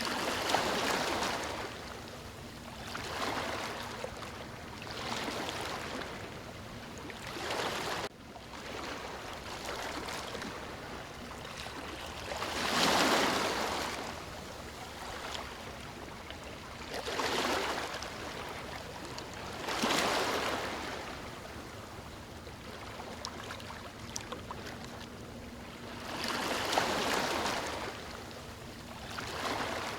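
Ocean waves breaking on a beach: surf surging in and washing back every few seconds, with the biggest breakers about thirteen and twenty seconds in.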